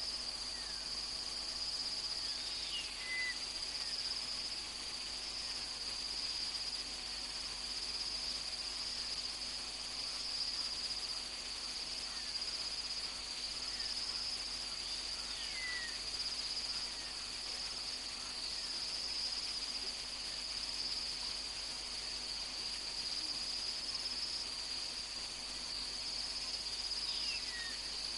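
Night insect chorus of crickets, an unbroken steady high-pitched trill. Three faint short falling chirps stand out over it: one a couple of seconds in, one about halfway through and one near the end.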